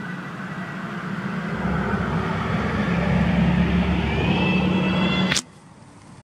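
Motor vehicle engine humming steadily and growing louder as it approaches, then cutting off suddenly about five seconds in.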